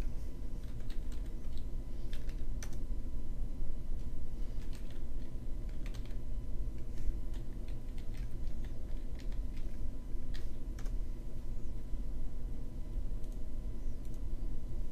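Computer keyboard typing: irregular short key taps in several runs, stopping about eleven seconds in, over a steady low hum.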